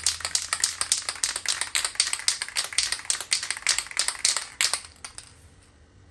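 Aerosol can of Wattyl Killrust etch primer being shaken hard: its mixing ball clacks against the can about five or six times a second, and the clacking stops about five seconds in.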